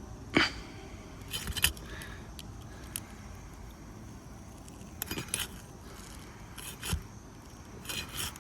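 A metal tool being worked under an asphalt shingle to free it from its sealant strip and nails: a handful of short scrapes and clicks at irregular intervals, the sharpest just after the start.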